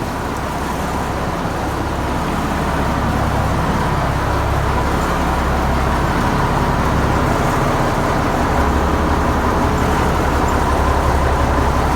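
A motor or engine running steadily, with a low rumble and a faint steady hum, growing a little louder over the first few seconds.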